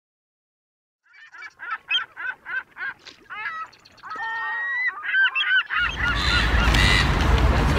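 Seagulls calling: a quick run of short squawks about a second in, then longer, drawn-out cries. A steady rush of outdoor noise comes in near the end under more calls.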